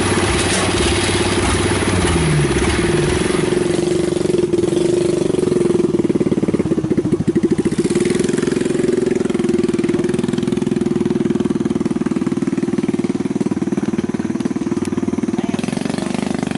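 Diesel engine of a farm machine running steadily at working speed. It gets louder and pulses for a few seconds in the middle, then settles back to an even note.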